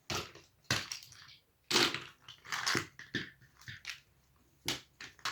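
Plastic Quercetti Kaleido Gears pieces clattering and clicking as they are handled and gathered together, in irregular short bursts with pauses between.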